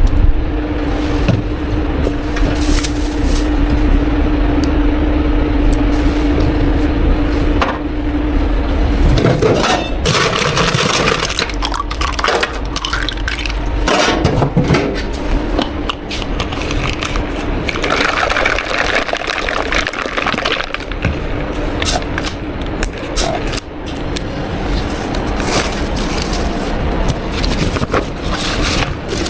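Drink-making sounds at a milk tea shop counter: liquid pouring and filling cups, with cups and utensils knocking. A steady machine hum runs under much of it.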